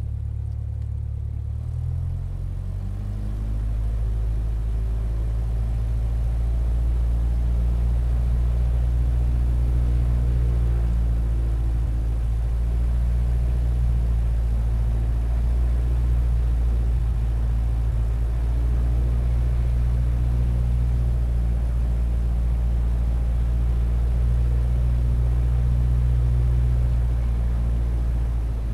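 Steady, deep drone of the Lockheed Super Constellation's four Wright R-3350 radial piston engines and propellers in cruise, heard from inside the cockpit. The tone shifts slightly about two seconds in, and the drone grows louder from about four seconds.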